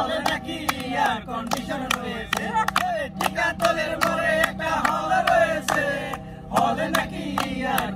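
A group of voices singing or chanting together, with frequent sharp clap-like beats.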